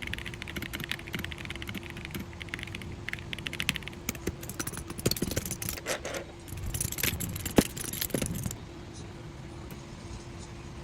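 Fast typing on an Akko PC75B Plus mechanical keyboard: a dense run of keystroke clacks for about eight seconds, then the typing stops, leaving a few faint clicks.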